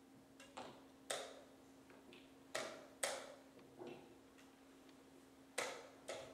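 Wooden chess pieces set down on the board and a digital chess clock's buttons pressed in a blitz game: about seven sharp clicks and knocks, mostly in quick pairs about half a second apart.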